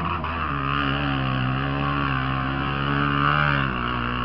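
ATV engine revving hard as the quad pushes through a mud pit: the revs climb and hold high with a slight wavering, then ease off near the end.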